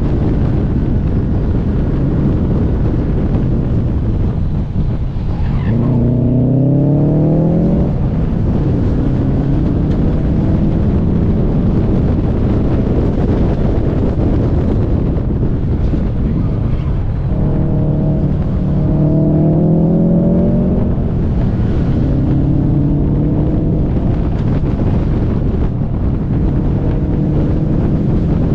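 Subaru WRX STI engine accelerating through the corners, its pitch rising twice, once about six seconds in and again about seventeen seconds in, over steady wind rush on the microphone.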